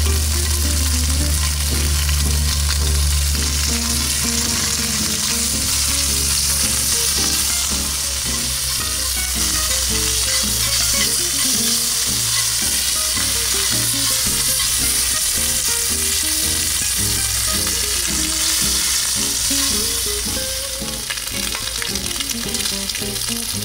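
Bacon strips sizzling steadily in olive oil in a cast-iron skillet, stirred with chopsticks, fried long to turn them crisp. The sizzle eases a little near the end.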